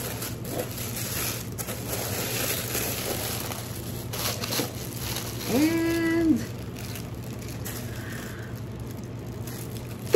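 White tissue paper crinkling and rustling as it is pulled away by hand, in many quick crackles. A little past halfway a short held vocal 'mm' sounds over it, the loudest moment. A steady low air-conditioner hum runs underneath.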